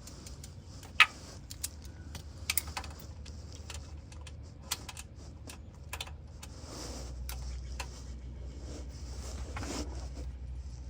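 Ratchet wrench clicking and tapping on metal in irregular clicks as a bolt is tightened, with the sharpest click about a second in. A steady low hum comes up about seven seconds in.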